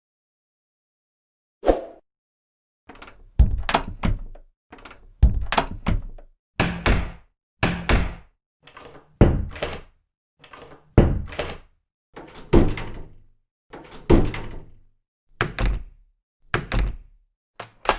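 A door shut again and again: small latch clicks, then a solid thud each time, about a dozen in a row roughly every second and a half, starting after about two seconds of silence.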